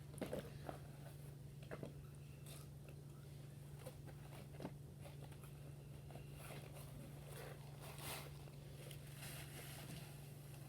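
Faint eating sounds close to the microphone: scattered small crunches and clicks, over a steady low hum.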